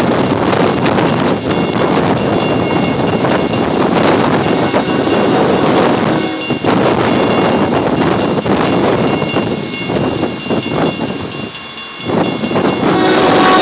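Freight train led by UP AC45CCTE and BNSF ES44C4 diesel locomotives rumbling past at restricted speed, mixed with gusting wind that rises and falls. A locomotive horn starts just before the end.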